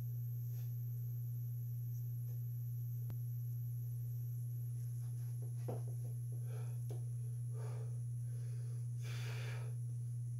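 A steady low hum, with a lifter's short breaths and sniffs under the barbell as he readies for a bench press set, the strongest a longer breath near the end.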